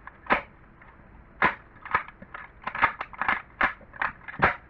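Plastic twisty-puzzle cube being turned by hand: a run of sharp clicking snaps as its layers are twisted, irregularly spaced and bunched most closely about halfway through.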